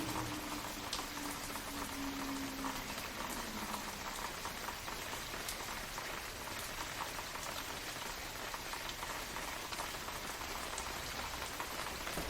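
Steady rain falling, a constant hiss with the patter of individual drops landing on a surface.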